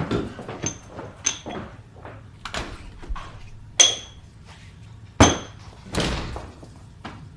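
Footsteps of boots on a wooden floor walking away, then a few sharp knocks and clicks, two of them loud with a short ring, about four and five seconds in.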